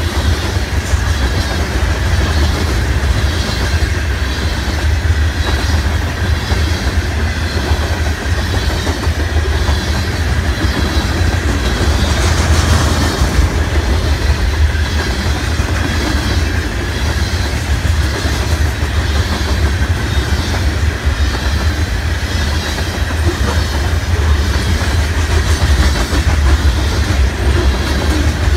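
Freight train of covered hopper cars rolling past at close range: a loud, steady rumble from the wheels and cars, with a regular clickety-clack from the wheels on the rails.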